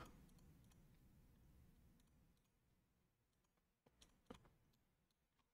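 Near silence: faint room tone, with a couple of quiet computer mouse clicks about four seconds in.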